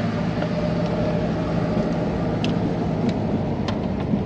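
Steady engine and road noise inside a moving vehicle's cabin as it drives along a paved road, a low even hum with a few faint clicks in the second half.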